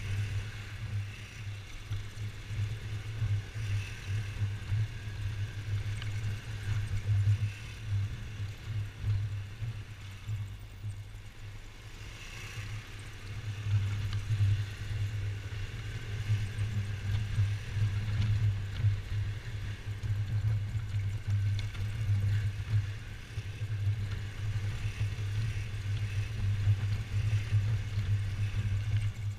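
Yamaha XMAX 250 scooter's single-cylinder engine running as it is ridden, a steady low drone whose loudness rises and eases.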